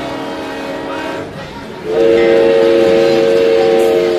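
A chord of several held tones sounding together, like a horn blast. It fades just after a second in and comes back much louder about two seconds in, then holds steady.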